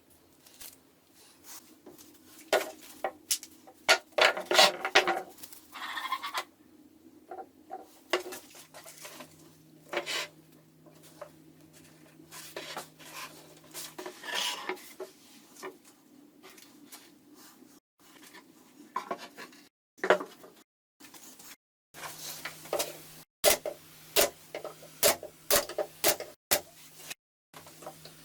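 Hand work with tools and wood: irregular knocks, clicks, clatter and scraping, cut off abruptly several times, with a faint low hum in two stretches.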